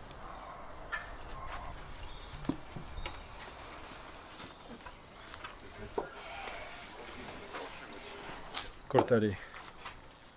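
Steady high-pitched insect chorus, growing louder about two seconds in, with a few light clicks and knocks.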